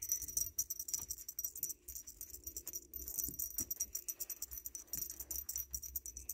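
Small jingle bell on a feather wand cat toy jingling in quick, irregular shakes as the toy is waved and batted.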